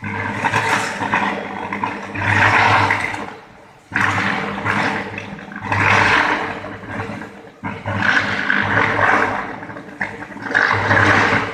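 Electric arc furnace in operation: a loud, noisy rush from the arc with a steady low electrical hum underneath. It breaks off and starts again abruptly about four and about eight seconds in.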